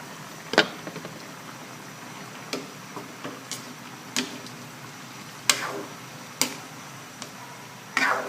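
A cooking utensil knocking and clinking against the wok while the simmering stew is stirred: about nine sharp, irregular knocks, a few with a brief ring.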